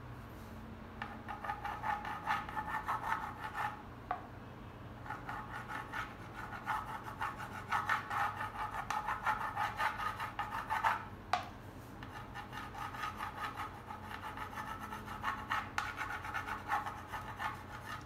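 Steel palette knife scraping and dabbing acrylic paint across the painting's surface in runs of quick repeated strokes with short pauses between them.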